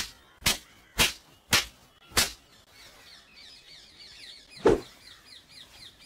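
A run of sharp cracks, about two a second, that stops about two seconds in; then faint birdsong of quick repeated chirps, with one dull thump near the end.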